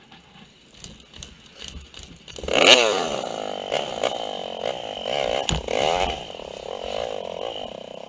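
Honda XR250R single-cylinder four-stroke dirt-bike engine firing up about two and a half seconds in, then running with the revs rising and falling.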